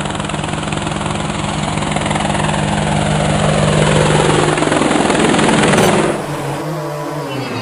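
Quadcopter drone's propellers buzzing steadily as it lifts off and hovers, growing louder. About six seconds in the buzz drops away into a lower, wavering whir.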